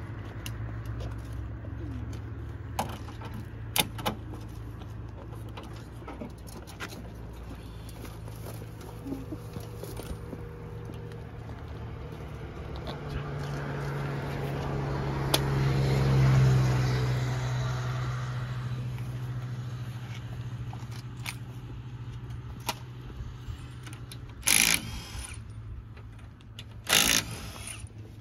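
Toyota GR Yaris Rally1 car's engine idling steadily during a roadside tyre change, with scattered clicks and knocks of wheel tools and the jack. A louder engine sound swells and fades about halfway through, and two short loud bursts of noise come near the end.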